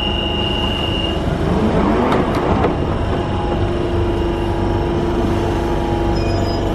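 London Underground 1992 Stock electric tube train starting away from the platform. A burst of noise comes about two seconds in, then a steady motor tone sets in as it gets moving.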